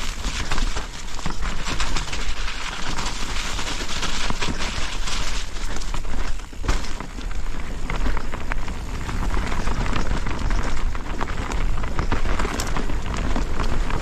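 Mountain bike rolling down a rough trail: a steady crackle of tyres over dirt and stones, with frequent small rattles and knocks from the bike. There is a brief lull about six and a half seconds in.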